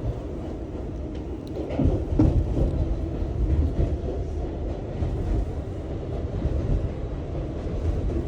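New York City subway train running on the rails: a steady low rumble, with a louder patch of clattering about two seconds in.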